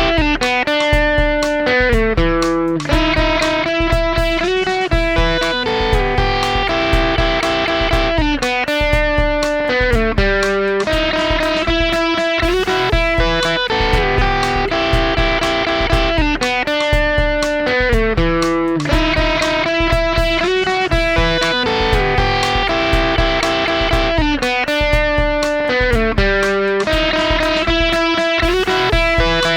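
Electric guitar played through an Xotic EP Booster pedal into a Vox MV50 AC amplifier: picked notes and chord runs in a phrase that repeats about every eight seconds.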